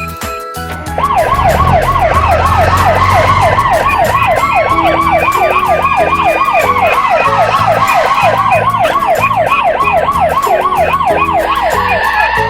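Cartoon siren sound effect that starts about a second in: a fast, repeating upward-sweeping wail, several sweeps a second, with a slower rise-and-fall tone above it, over background music.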